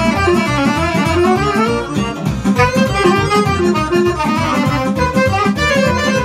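A sîrba, a fast Romanian folk dance tune, played live on piano accordion, alto saxophone and electronic keyboard over a fast, steady beat.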